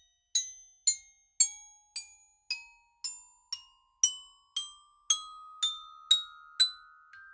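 Intro music: a bell-like mallet-percussion melody of single struck notes, about two a second, over a soft held tone that steps upward in pitch.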